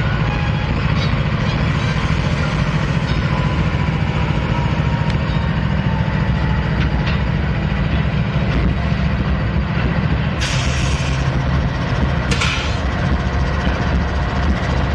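GE wide-cab diesel-electric locomotives running as they roll slowly past, their engines' low drone dropping in pitch about ten seconds in. Two sharp blasts of air hiss from the locomotives' air system come about ten and twelve seconds in.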